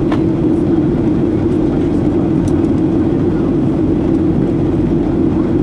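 Steady cabin drone of a Boeing 737-800 in flight, heard from a window seat beside the wing: the CFM56 turbofan engines and rushing air make an even, unbroken hum with a low rumble beneath it.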